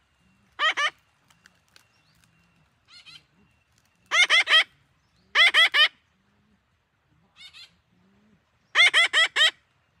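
Parakeets calling: loud, sharp notes in quick runs of two to four, four loud runs and two fainter ones spread across the few seconds.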